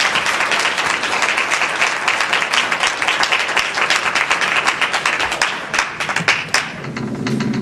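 Audience applauding: dense clapping that thins out to scattered separate claps over the last couple of seconds and dies away near the end.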